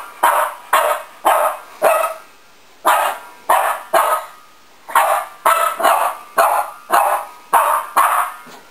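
A Boston Terrier puppy barking again and again, about two barks a second, in three runs with two brief pauses.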